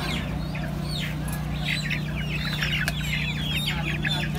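A cage of young black chickens calling: many short, falling peeps and cheeps overlapping, growing busier after about a second and a half, over a steady low hum.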